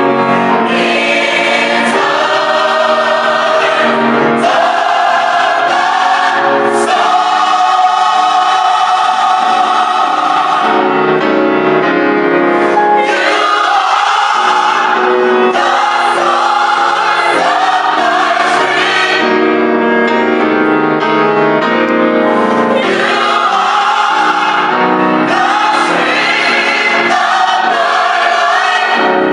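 Choir singing a gospel song with musical accompaniment, in phrases with short breaks between them.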